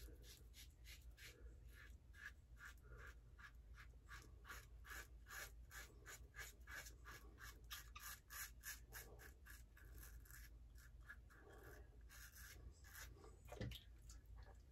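Faint scraping of a UACowboy Kyle 3D-printed double-edge safety razor cutting stubble through shaving lather, in short quick strokes, several a second. A soft thump comes near the end.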